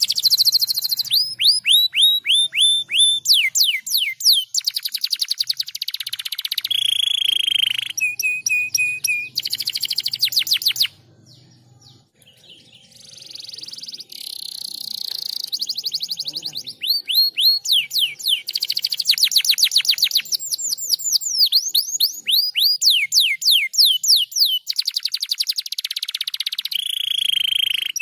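Domestic canary singing a long song of rapid high trills, runs of quick repeated notes that sweep down in pitch, changing speed from one run to the next. The song breaks off briefly about eleven seconds in, then resumes.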